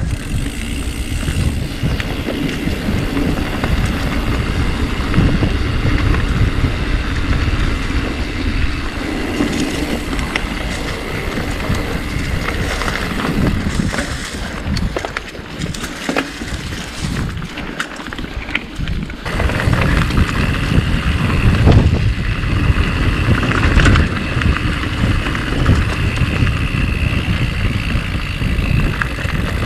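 Mountain bike ride on a dirt trail: tyres rolling over dirt and stones, with rattles and knocks from the bike over a heavy rumble of wind and motion on the camera microphone. It eases off for a few seconds around the middle.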